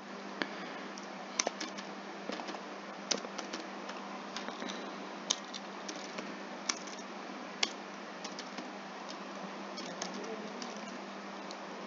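Computer keyboard typing: scattered, irregular key clicks, a dozen or so, over a steady background hiss and low hum.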